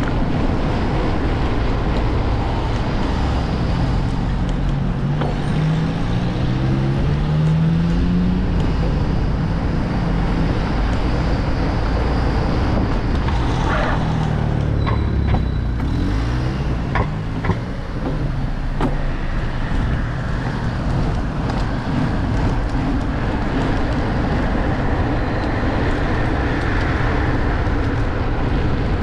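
Street traffic heard over a steady wind rumble on the microphone. A vehicle engine rises in pitch about four to eight seconds in, and a few sharp knocks come near the middle.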